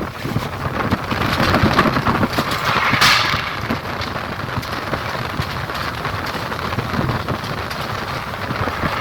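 Strong wind blowing steadily, with a sudden loud whoosh about three seconds in that dies away over a second.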